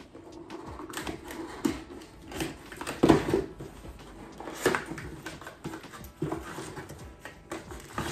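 A pink cardboard box being opened by hand: flaps lifted and pulled, with irregular crackling and scraping strokes, the loudest about three seconds in, and the rustle of the packing paper inside as a hand reaches in.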